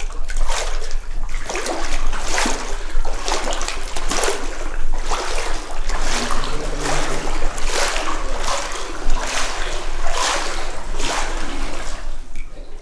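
People wading through deep water in waders, the water splashing and sloshing with each stride, roughly once a second.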